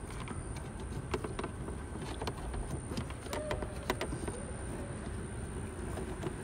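Scattered light clicks and rustling of hands working behind a car's headlight housing, handling the LED headlight bulb and its plastic fittings, over a steady low rumble.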